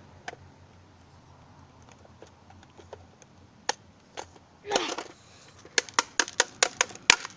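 Sharp clicks and a short scrape as a tool prises and knocks at the plastic casing of a drone's remote controller, ending in a quick run of about eight clicks in the last couple of seconds.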